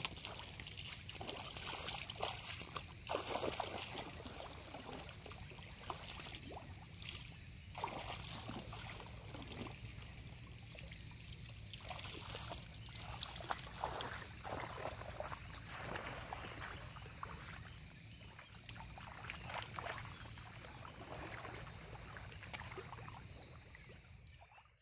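Water sloshing and splashing in an irregular run as a person wades through a shallow, weedy pond and sweeps a hand scoop net through the water.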